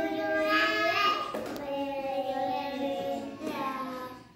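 A young child's voice singing in long held notes, with a short break about a second and a half in.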